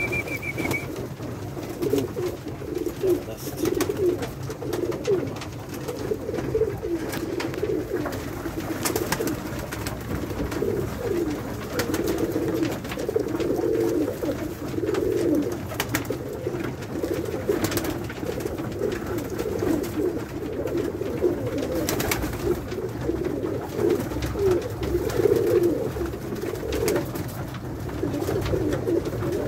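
A flock of Pakistani High Flyer pigeons cooing together, a dense continuous chorus of low warbling coos, with scattered short sharp clicks.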